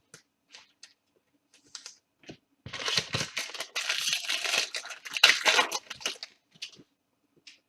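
Trading card pack wrapper being torn open and crinkled, with a dense stretch of tearing and rustling from about three to six seconds in, set between lighter ticks and rustles of cards being handled.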